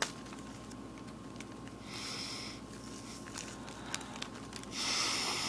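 Two sharp sniffs through a plastic drinking straw, drawing powder up from a zip-lock bag into the nose. The second, near the end, is longer and louder.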